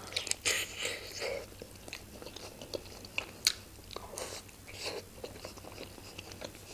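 Biting into and chewing Georgian khinkali dumplings. Two louder bites come about half a second in and again about three and a half seconds in, between soft chewing and small mouth clicks.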